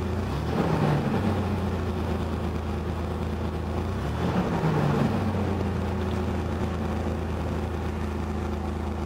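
1991 Oldsmobile Bravada's 4.3-litre V6 idling steadily at about 1,000 rpm just after a cold start on a new battery, with two brief wavers in the engine note.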